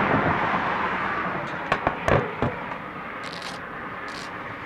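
Steady rushing noise of a bicycle ride, wind on the microphone and tyres on the road, slowly fading, with three sharp clicks around two seconds in.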